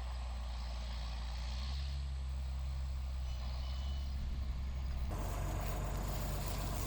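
A John Deere 7610 tractor's diesel engine running steadily at low speed; about five seconds in the sound changes abruptly and becomes rougher and fuller.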